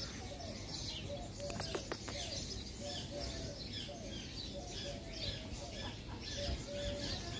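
Mixed birds chirping, with short low calls repeating about twice a second under many high, quick chirps, and a few faint clicks about two seconds in.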